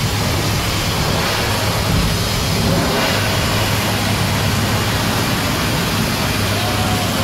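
Steady low engine drone under a constant rushing noise.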